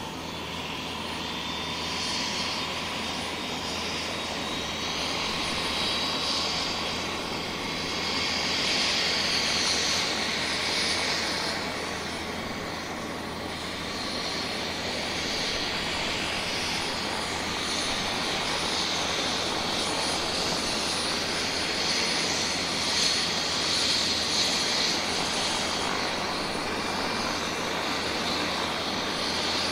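Bell 407 helicopter's turboshaft engine running with the rotor turning: a steady turbine whine over a broad rotor rush that swells and eases every few seconds.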